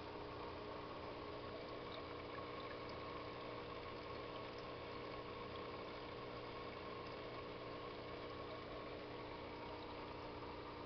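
Aquarium filter running: a steady hum with an even trickling hiss of moving water.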